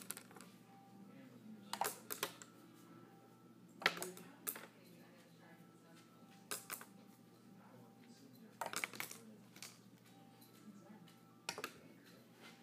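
Paintbrush flipped and landing on a hard surface: six short clattering knocks, each a quick double or triple clack, spaced about two seconds apart.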